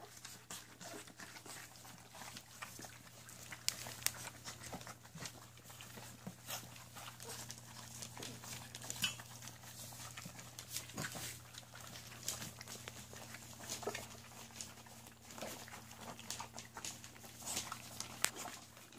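A litter of Labradoodle puppies eating together from a stainless steel pan: a busy, irregular patter of small licks, smacks and clicks as they lap and chew, over a low steady hum.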